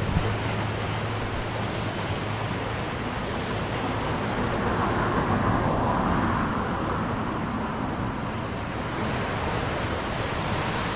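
Rushing floodwater of the swollen South Fork of the Kentucky River, a steady loud roar that swells a little around the middle.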